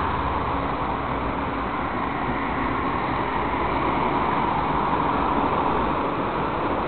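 Steady road traffic noise of cars driving past on a multi-lane street, a little louder through the middle as a car passes close by.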